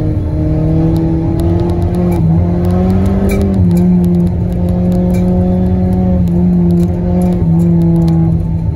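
Audi A3's 1.8-litre turbocharged four-cylinder engine running under load, heard from inside the cabin while driving on snow. Its pitch climbs slowly for the first three seconds or so, then settles a little lower and holds, with brief dips near the middle and a drop near the end. A low road rumble and scattered sharp clicks run underneath.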